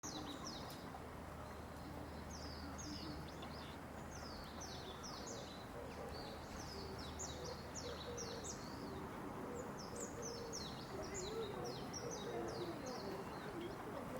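Little grebe chicks peeping: thin, high chirps that each slide downward, coming in quick clusters of two to four again and again over a steady outdoor background.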